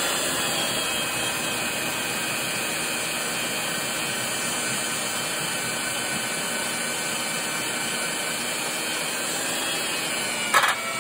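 Milwaukee magnetic-base drill press running, its motor whining steadily as a small twist bit cuts into a steel bar. A sharp crack about ten and a half seconds in.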